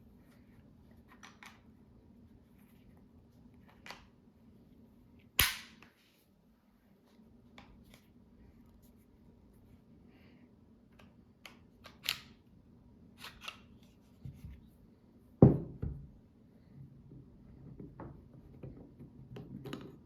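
Metallic clicks and clacks of a pistol being handled and taken apart for cleaning, with one sharp snap about five seconds in and a heavier clack about fifteen seconds in.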